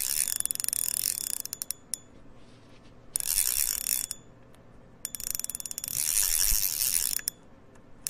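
Fishing reel drag clicking rapidly in three bursts of one to two seconds each, with short pauses between.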